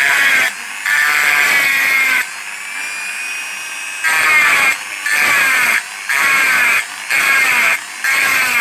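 A small handheld rotary tool with a round burr grinding into a polished metal engine cover in short repeated passes, about one a second. Its high whine drops in pitch each time the bit bites into the metal, with a quieter, steadier stretch of running in the middle.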